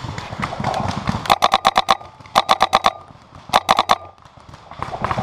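Paintball marker firing three quick bursts of sharp pops, about ten shots a second, several shots to each burst.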